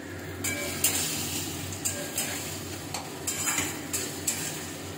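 Metal spatula scraping and clinking against a steel wok, stirring tomatoes, coriander and green chillies frying gently in oil over a low gas flame, with a soft sizzle. The tomatoes are being cooked down until they soften and melt.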